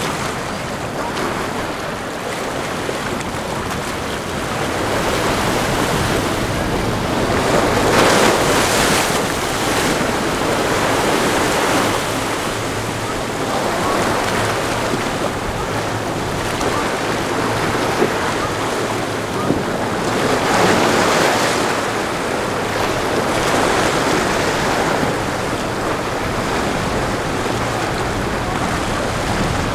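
Rough sea surf washing and breaking, with wind buffeting the microphone and the low, steady drone of boat engines under it. The surf swells loudest about eight seconds in and again around twenty-one seconds.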